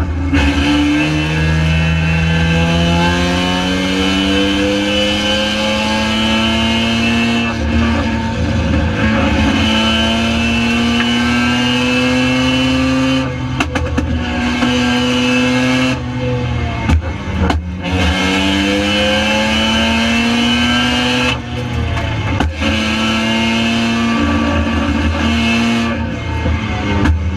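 Mazda RX-7 Spec RX7 race car's rotary engine at full racing pace, heard from on board: the engine note climbs steadily and drops back sharply several times as the driver shifts or lifts, over a heavy steady low rumble of wind and road noise.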